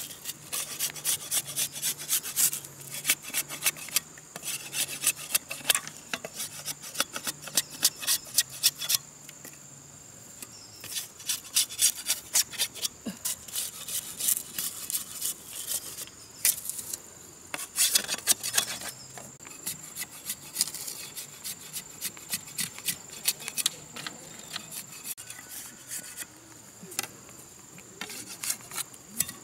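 A knife blade scraping and shaving a strip of bamboo in quick repeated strokes, in runs broken by short pauses. A steady high insect call drones behind it.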